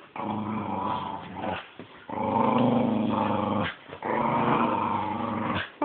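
Dogs growling in play during a tug of war: three long, low growls with short breaks between them.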